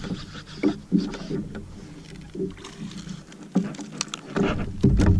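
Scattered clicks and knocks of a fishing reel being wound and tackle handled as a small bait fish is reeled up to a kayak, with a heavier low thump near the end.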